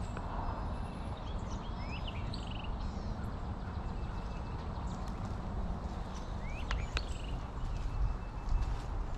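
Footsteps walking over dirt and grass, under a low steady rumble on the microphone, with a few bird chirps about two seconds in and again about seven seconds in.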